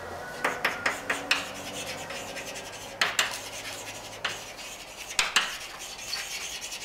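Chalk writing on a blackboard: sharp taps as the chalk meets the board and short scratchy strokes, coming in small clusters with brief pauses between.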